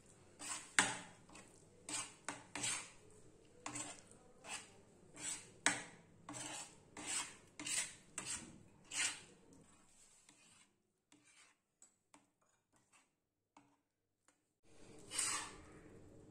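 Metal spatula scraping and pressing on an iron tawa griddle while mashing a thick vegetable mash, about one stroke every two-thirds of a second. The strokes stop about ten seconds in, and one more scrape comes near the end.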